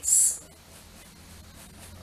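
Faint scratching of a small fan brush being worked over acrylic paint on canvas, just after the hissing 's' of a spoken word at the start; a low steady hum lies underneath.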